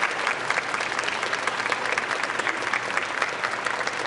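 A crowd applauding: many people clapping, dense and steady.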